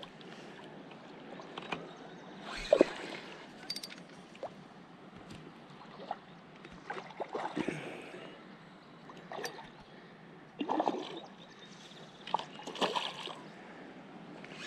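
River water splashing and sloshing in scattered bursts, with a few light clicks, over the steady rush of the current.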